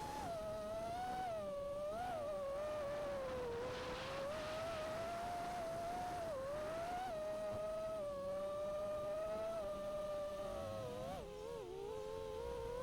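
Brushless motors and tri-blade propellers of a 5-inch FPV racing quadcopter whining in flight, the pitch rising and falling as the throttle changes, with a brief dip about eleven seconds in.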